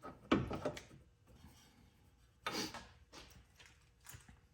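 Hand-work noise on a car's front suspension as a bolt is worked into the lower control arm: a sharp metal click, a few lighter clinks, then a short scraping rub and a couple of faint knocks.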